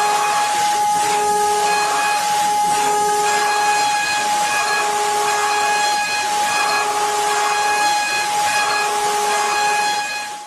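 Metalworking machine tool running: a steady hiss under a constant high whine, with further tones cutting in and out about once a second. The sound cuts off abruptly at the end.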